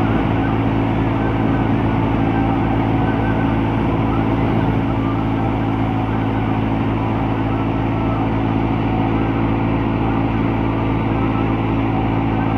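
Massey Ferguson 385 tractor's diesel engine running steadily under load, driving a wheat thresher. The engine's hum is mixed with the steady noise of the threshing drum, with no change in pitch or level.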